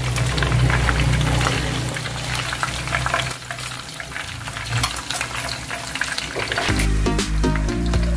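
Hot cooking oil sizzling and crackling under fried chicken wings as they drain in a wire mesh strainer over the frying pan. Background music comes in clearly near the end.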